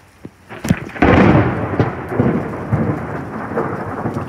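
Thunder from a lightning strike about one and a half kilometres away: a sudden loud crack about a second in, then a long rumble that surges several times.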